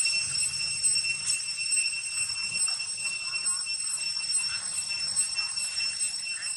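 Steady, high-pitched insect drone: one unbroken tone with overtones that holds its pitch throughout.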